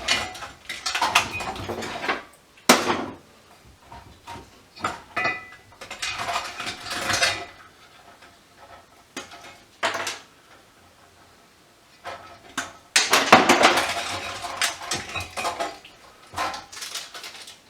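Metal clinks, knocks and scraping clatter from hand tools and parts while a variable frequency drive is pried apart on a workbench. The sounds come in irregular bursts, with a sharp knock about three seconds in and the longest, loudest clatter about thirteen seconds in.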